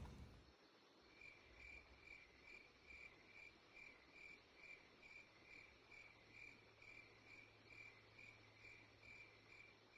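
Near silence with a faint cricket chirping steadily, about two and a half chirps a second.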